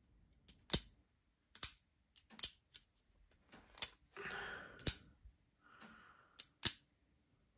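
Folding knife with a magnetic detent and magnetic 'hockey puck' lock being flicked open and closed again and again: sharp metallic clicks, mostly in quick pairs, a few followed by a brief high ring, as the magnets snap the blade open and shut.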